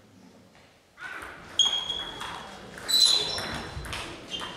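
Table tennis rally in a sports hall: after about a second of quiet the celluloid ball starts clicking off rackets and table in quick succession, echoing in the hall, with a few short high squeaks from shoes on the hall floor.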